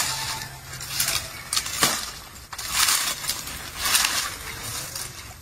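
Dry leaves and fronds rustling and crackling in several short bursts as they are gathered by hand, with one sharp snap a little under two seconds in.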